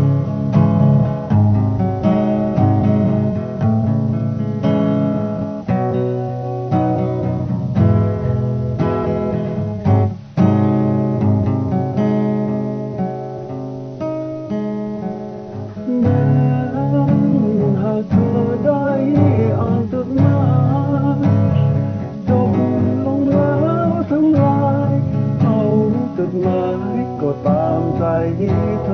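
Acoustic guitar playing the intro of a ballad, strummed and picked chords in a steady rhythm. About halfway through, a wavering lead melody joins over the chords.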